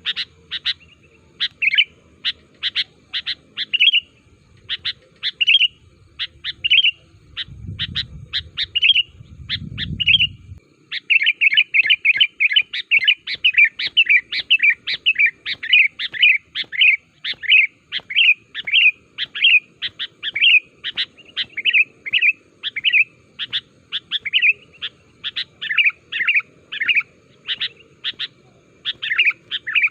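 Sooty-headed bulbul singing: short, bubbly whistled notes repeated in phrases, turning into a fast, unbroken run of notes about a third of the way in. A low rumble sits under the song for a few seconds before that.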